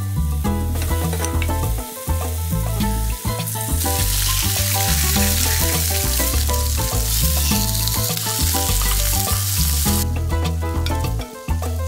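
A John Dory fillet sizzling in hot oil in a frying pan. The loud frying hiss sets in about four seconds in and stops near the end, over background music with a steady bass line.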